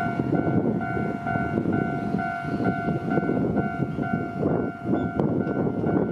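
Japanese level-crossing warning bell ringing in a steady repeating ding about twice a second, over the rumble of an approaching Enshu Railway electric train. A single sharp knock about five seconds in.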